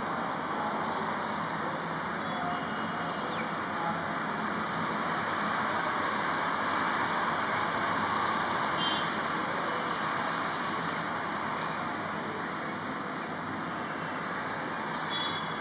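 Steady background hiss of distant road traffic, swelling a little in the middle, with a few faint, short, high bird chirps.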